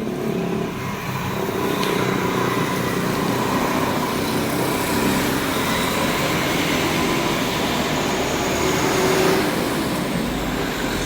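Heavy diesel engines of road-paving machinery running steadily, with a faint steady whine over them and a slight swell about nine seconds in.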